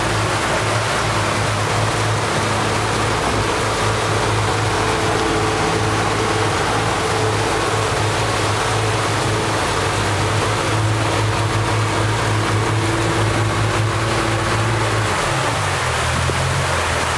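Speedboat engine running steadily under way, a low hum over the rush of water and wind, heard from inside the boat's cabin. Near the end the engine note drops lower as it throttles back.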